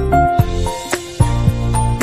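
Background music: a tune of short pitched notes over a low bass line and a regular beat.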